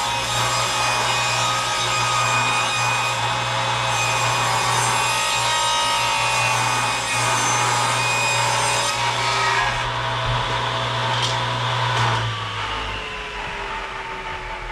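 Table saw ripping a long wooden board lengthwise, the blade cutting steadily under the motor's hum. About twelve seconds in the saw is switched off and the blade winds down with a slowly falling whine.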